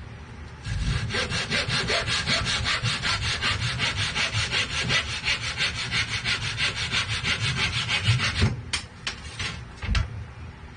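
Fast, even scraping strokes on wood, with a tool working the instrument's wooden body. The scraping stops about eight and a half seconds in, and a few sharp knocks follow.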